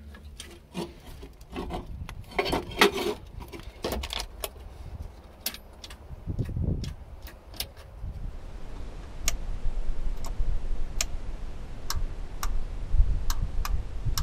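Repeated sharp metallic clicks and small rattles as the ignition key switch and controls of a derelict Hitachi UH123 excavator are worked, with no cranking from the starter, only clicking, which the owner puts down to too little battery current or bad wiring. Under the clicks runs a low rumble.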